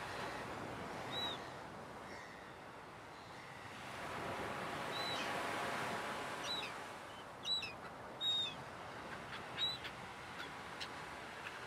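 Beach ambience: surf washing in a steady hiss that swells and eases. Over it come short, high bird calls, one about a second in and a cluster of five or so from about five to ten seconds in.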